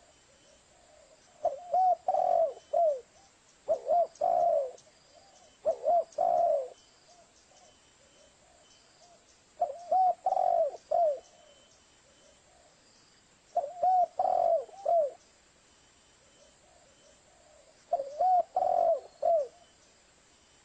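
Spotted dove cooing: six short phrases of a few rounded coos each, spaced a few seconds apart. It is a lure call used to draw in other spotted doves.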